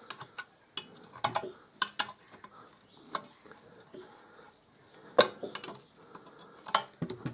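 Irregular metallic clicks and taps of a slim steel tool and clip against a chrome exhaust flange as the retaining clip is worked into place in the flange; the sharpest clicks come a little past five seconds and near seven.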